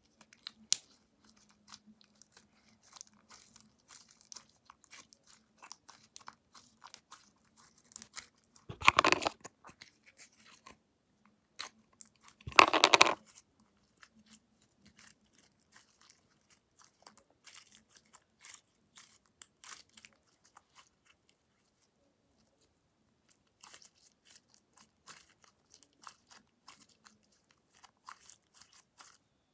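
Hands kneading and stretching sticky homemade slime: a run of small wet clicks and squelches, with two louder squishes about nine and thirteen seconds in. The slime is still a little sticky after more activator.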